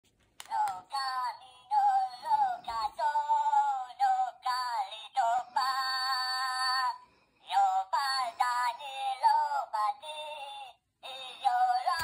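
Minion figure toy playing a high-pitched sung tune in short phrases, with brief pauses about seven and eleven seconds in.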